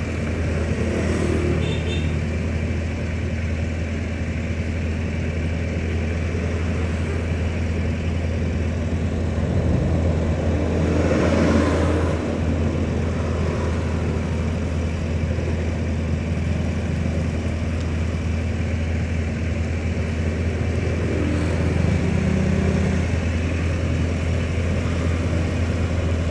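Vehicle engine idling while stopped at a red light, with street traffic around it. The traffic noise swells briefly about eleven seconds in.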